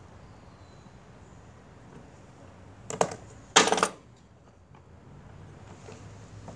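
Metal hand tool clinking against metal: a short clink about three seconds in, then a louder, longer clattering clink half a second later.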